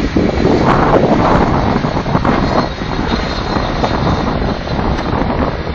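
Jet airliner engines running as the plane passes: a broad rushing roar that slowly fades, with a faint high whine in it.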